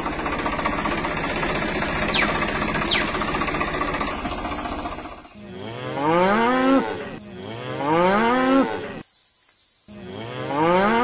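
Cattle mooing: a long, rough call, then from about five seconds in three separate calls that each rise and fall in pitch, with a short pause before the last one.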